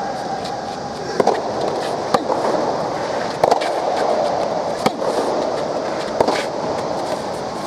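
A soft tennis rally: sharp pops of the soft rubber ball being struck and bouncing, about every second and a half, over a steady background hum.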